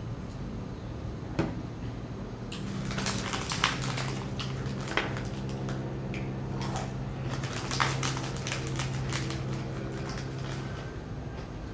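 Crinkling and rustling of a plastic snack wrapper as a hand digs into it for biscuits, with chewing. A single click comes about a second in.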